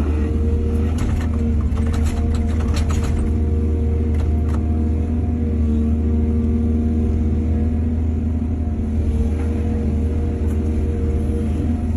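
Heavy diesel machinery running steadily with a deep rumble and a steady tone over it, with bursts of clanking knocks about a second in, around four seconds, and again near the end.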